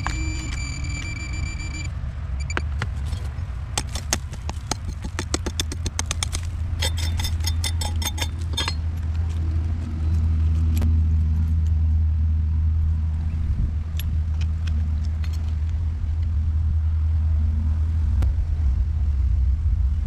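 A steady low rumble throughout, louder from about ten seconds in. Over it, rapid clicking and scraping of a metal screwdriver prying at crumbling old brick comes in bursts between about four and nine seconds, with a few scattered clicks later.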